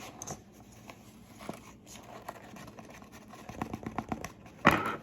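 Measuring spoon scooping and handling ground spice: faint scrapes and small clicks, a quick run of light taps a little before the end, then one louder knock near the end.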